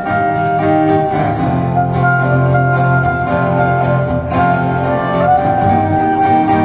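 Live instrumental music: a clarinet plays a melody of long held notes, one sliding up in pitch about five seconds in, over an acoustic guitar accompaniment.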